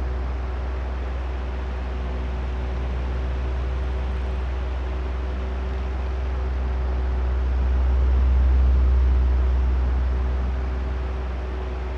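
Oscillating electric fan running: a steady rush of air with a deep rumble and a faint motor hum. It swells louder about two-thirds of the way through as the fan head turns toward the microphones, then fades again as it turns away.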